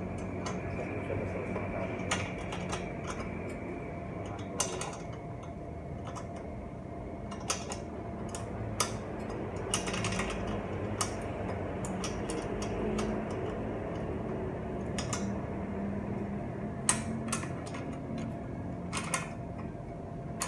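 Metal clinks and taps from hand tools working on a bicycle crankset, a sharp click every second or few, over a steady background hum.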